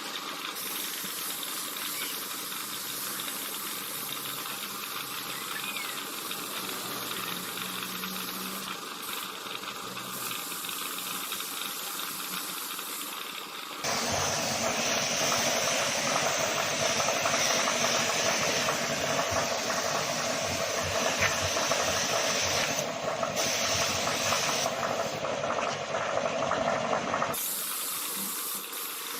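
Steady hiss of compressed air from an air spray tool. It gets much louder about halfway through and drops back shortly before the end.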